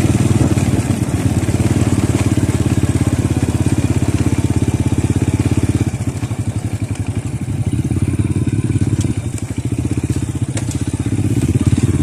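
Motorcycle engine running with a steady throb, easing off about halfway through and picking up again near the end.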